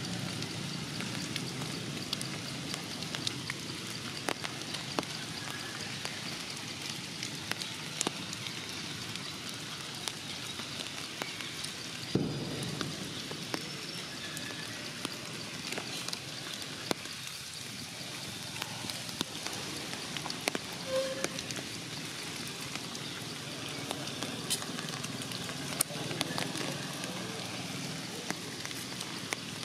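Rain pattering and dripping on forest leaves: a steady hiss with many scattered sharp drops.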